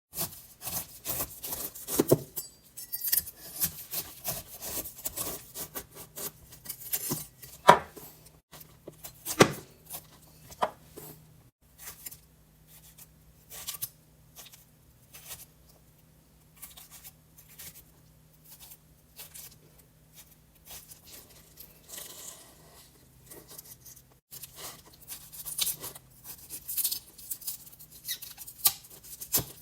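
Knife cutting up a pineapple: irregular cutting and scraping sounds, denser near the start and the end, with a few louder knocks.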